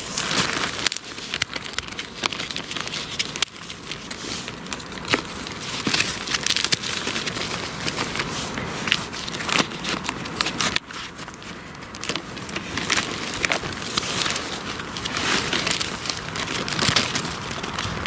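Continual irregular crackling and rustling of rotten wood and bark being broken off a decaying stump and gathered by hand.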